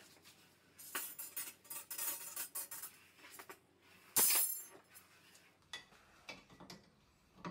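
Thin steel rebar being handled at a bench vise: scattered light metallic clicks and clinks, with one louder, longer scraping rattle about four seconds in.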